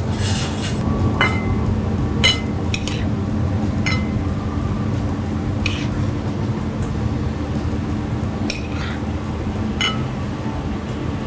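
Metal spoon clinking and scraping against a stainless steel saucepan and a ceramic plate as risotto is spooned out, about eight scattered clinks, over a steady low hum of kitchen equipment.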